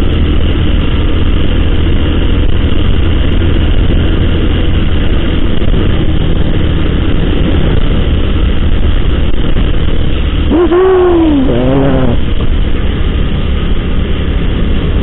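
Honda motorcycle ridden steadily along a road, its engine running under a steady rush of wind on the rider's microphone.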